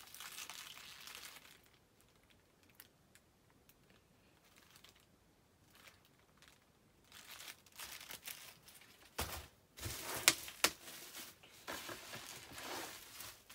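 Bubble wrap and cardboard rustling as a hand rummages through a packed shipping box, with several sharp crackles. It starts about halfway through, after a few quiet seconds with only faint handling of a small cardboard pack.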